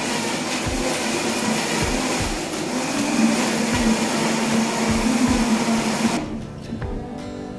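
Countertop blender running, its motor whirring steadily with a wavering hum as it blends a drink, then switching off about six seconds in.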